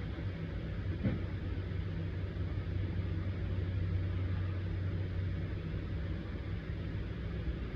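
Small electric gear-oil pump motor running steadily, a continuous low hum as it pushes gear oil up into an outboard lower unit.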